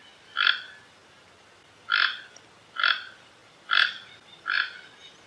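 A frog calling: five short, clipped croaks, roughly one a second.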